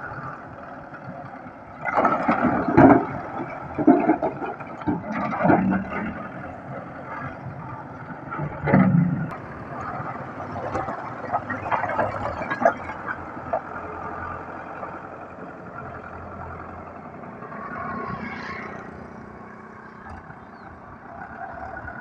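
Russian-made tractor's engine running under load while its front-loader bucket digs into a pile of broken stone and brick, with several loud clattering crashes of rubble in the first ten seconds and lighter clatter after.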